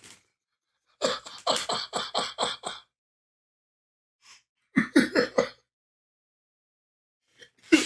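A man laughing in two bouts of quick, breathy pulses: a longer run of about eight about a second in, then a shorter run of four about five seconds in.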